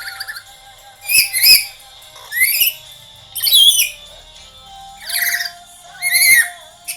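Black-capped lory giving short, high whistled calls, about six in a row roughly a second apart, some sweeping upward. A faint steady tone runs underneath.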